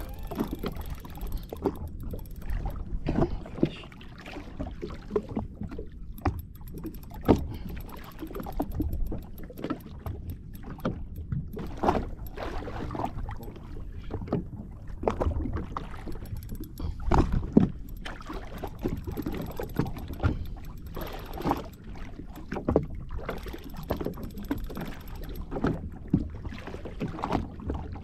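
Small waves lapping and slapping irregularly against a jet ski's hull, with wind buffeting the microphone.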